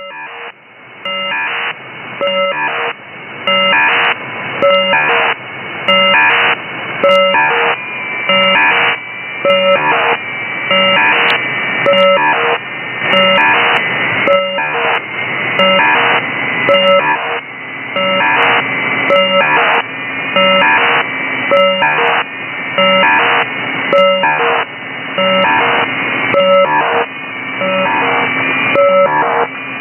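Unidentified radio signal received on a software-defined radio: a buzzing pattern of several fixed tones over static hiss that repeats about once a second, with the sound cut off above about 3 kHz as from the receiver.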